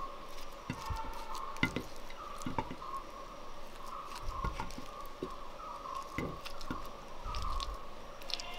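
A knife cutting through soft steamed nendran banana, with scattered soft pats and clicks as the slices drop into a clay bowl. A steady, wavering tone runs underneath.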